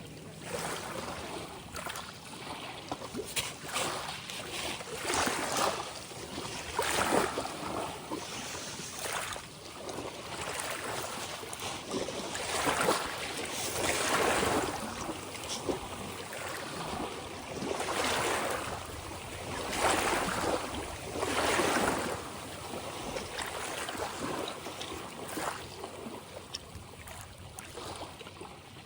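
Ocean waves washing and splashing in, in repeated louder surges every second or two over a steady rush of water.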